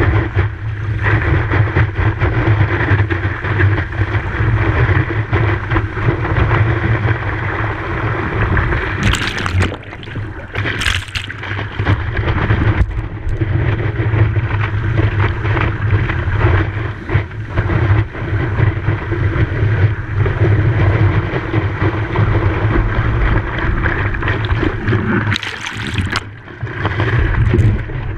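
Wind buffeting the microphone at the beach, a steady low rumble over the wash of the surf, with a few short hissing bursts, twice about a third of the way in and once near the end.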